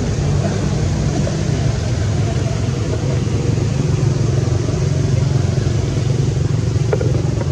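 A motor vehicle engine running steadily, a low, even drone.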